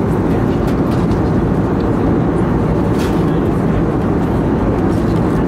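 Steady cabin noise inside an Airbus A320neo with CFM LEAP-1A engines: an even low rumble with a fainter hiss above it.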